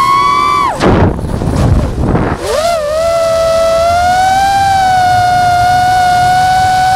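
FPV drone's motors whining at a steady pitch. The whine drops out about a second in, giving way to a rushing noise for about a second and a half, then swoops back up and holds steady as the throttle settles.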